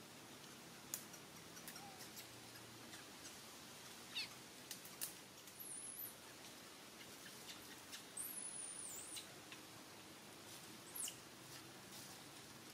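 Faint, short high-pitched animal squeaks and chirps, some gliding in pitch, with a few sharp clicks in between.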